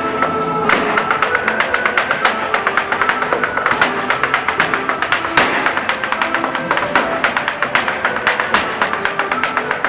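Irish dance music with many quick, sharp taps and clicks from a dancer's hard shoes striking the stage in time with it.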